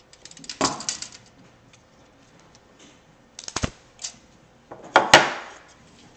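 Clattering and knocking of a wooden block, tape measure and wrapped nail handled on a wooden table, in three short bursts of clicks and knocks. The loudest comes about five seconds in, as the block and nail are picked up.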